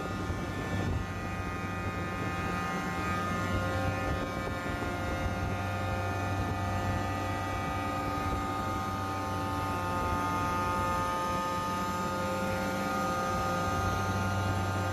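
York variable-speed-drive screw chiller running: a steady low hum with several steady high whining tones over it.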